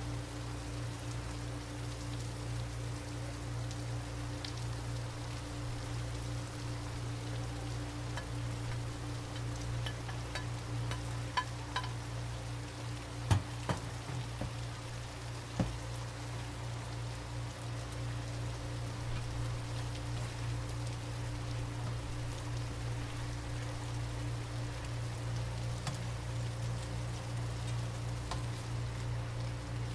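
Beef and vegetables sizzling steadily in a nonstick wok, with a steady low hum underneath. A handful of sharp clacks of a utensil against the pan come between about 10 and 16 seconds in, the loudest about 13 seconds in, as the vegetables go in and are stirred.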